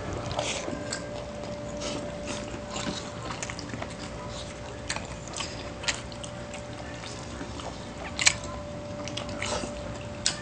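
Close-up eating sounds of two people eating with their hands: wet chewing and lip smacks, with scattered sharp clicks. The loudest click comes about eight seconds in, over a faint steady hum.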